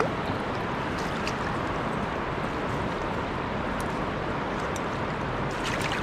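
Steady rush of flowing river water, with a few faint clicks.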